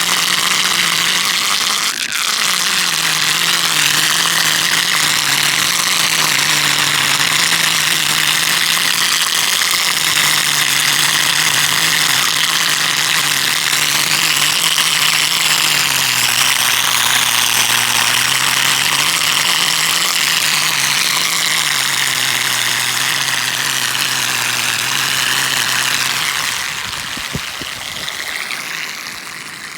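Whirlpool over a dam outlet sucking in air with a loud, wavering whistle over rushing water. The tone shifts slowly in pitch throughout and fades somewhat near the end.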